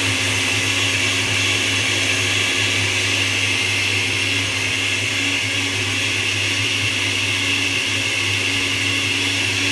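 Rotel ProMix 474 blender's motor running at a steady speed, blending a thick green raw-food smoothie in its glass jar: an even, constant-pitch whir with a hissing chop of the liquid.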